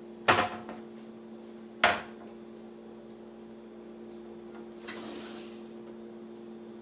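Two sharp wooden knocks, about a second and a half apart, as kitchen cabinetry is shut while cleaning. Under them runs a steady low hum, with a soft hiss about five seconds in.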